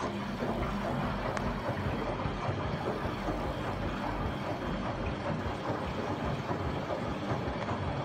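LG front-loading washing machine in its wash cycle: the drum turning with soapy water sloshing inside and the motor running, a steady noise throughout.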